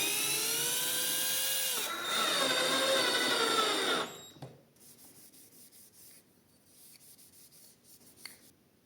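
Small power tool motor running with its pitch sliding up and down, stopping about four seconds in; a faint click follows near the end.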